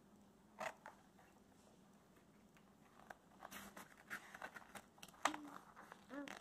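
Pages of a book being turned by hand: faint paper rustling with a quick click about half a second in, then a run of flicks and rustles in the second half, loudest about five seconds in.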